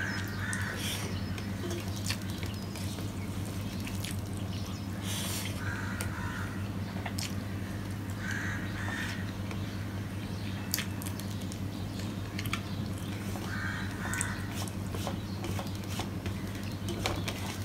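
Fingers clicking and scraping against a steel plate while mixing rice, with chewing, over a steady low hum. A bird calls briefly four times: near the start, about six seconds in, a few seconds later, and again near the end.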